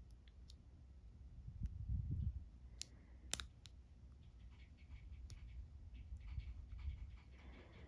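Faint clicks and light scraping of a pick working the pins inside an Ultion dimple lock cylinder, with one sharper click about three seconds in and a brief low rumble of handling around two seconds.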